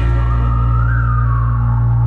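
Opening of a pop song: a whistled melody rising and falling over a steady, sustained bass.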